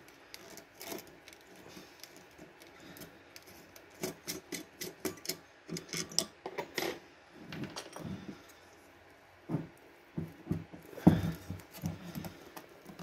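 Small clicks, taps and scrapes of metal and plastic as a screwdriver works the wire guard and screws off a CPU cooler fan. A few louder knocks come near the end as the fan and heatsink are handled.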